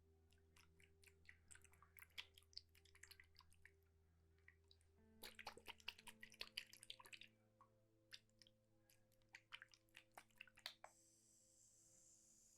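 Faint water dripping and trickling in small drops: an uneven run of quick little ticks and plinks, busiest about five to seven seconds in and sparser near the end.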